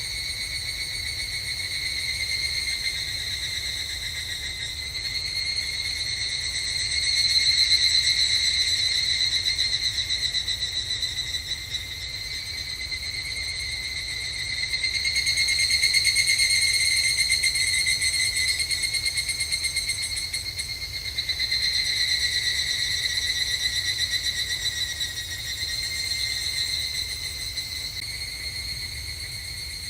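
Evening cicadas (higurashi) calling in a shrill, ringing chorus that swells and fades in waves, loudest about a quarter of the way in and again around the middle.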